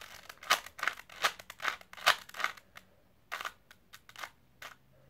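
Plastic 3x3 Rubik's Cube layers being twisted by hand, each turn a sharp click. There is a quick run of about four clicks a second for over two seconds, then a short pause and a few sparser clicks.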